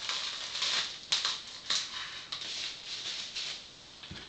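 Plastic cling wrap crinkling as it is pulled off a plastic food container and bunched up, in a string of rustling bursts with a few sharp crackles.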